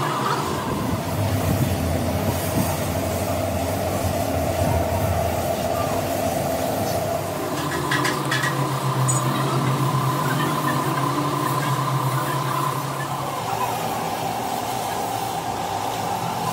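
Steady mechanical drone of a machine running, its pitch stepping up about seven seconds in, with a few short clicks about eight seconds in.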